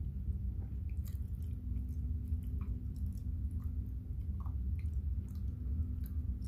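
A person chewing a mouthful of fried banana, with soft wet mouth clicks and smacks scattered throughout, over a steady low hum.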